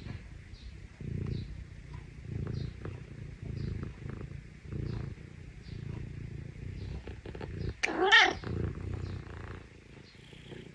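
Scottish Fold kitten purring in rhythmic pulses a little over once a second, the purr it puts on when it wants affection. About eight seconds in it gives a short meow, the loudest sound here.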